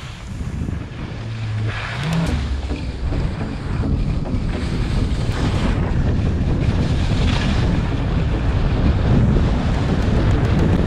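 Wind buffeting a skier's camera microphone at speed, a heavy rumble that grows louder as the skier picks up speed. Skis scrape across the snow in hissing swells a few times as the skier carves turns.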